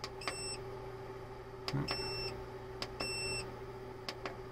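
Growatt 3000 W hybrid inverter's keypad beeping as its buttons are pressed: each press gives a small click and then a beep, three times, one short beep near the start and two longer ones about two and three seconds in. Two more clicks come near the end, over a steady low hum.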